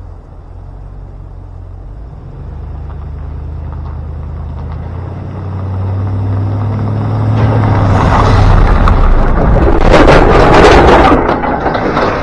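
Ram 2500 pickup pulling away with an empty flatbed trailer in tow. The engine note grows louder and rises as it accelerates, and a loud rumbling clatter builds up over the last few seconds.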